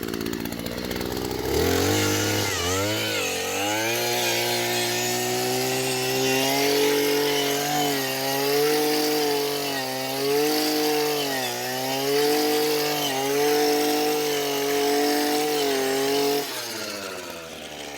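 Powered earth auger running as it bores into the ground. Its motor spins up about a second and a half in, holds a steady hum that dips in pitch again and again as the bit bites into soil, and stops shortly before the end.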